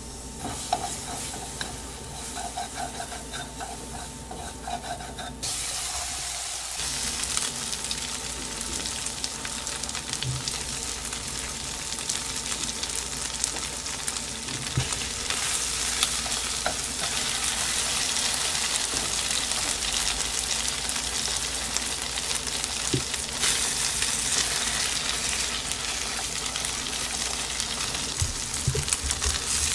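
Chicken pieces coated in potato starch frying in mayonnaise in a non-stick frying pan. A softer sizzle from the melting mayonnaise jumps abruptly to a loud, steady sizzle about five seconds in as the chicken goes in, with a few light taps of chopsticks turning the pieces.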